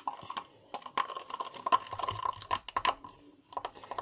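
A spoon stirring a thick, stiff slime mixture in a cup, with irregular clicking and scraping taps against the cup's sides and a short pause near the end.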